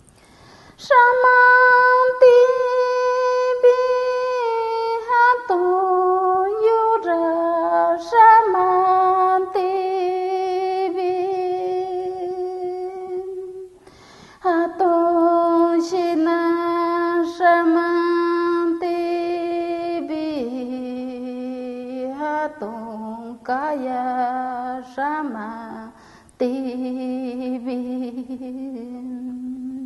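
A woman singing an icaro, an Amazonian ayahuasca ceremony chant, solo and unaccompanied. She sings in slow phrases of long held notes, with brief breaks about halfway through and again near the end.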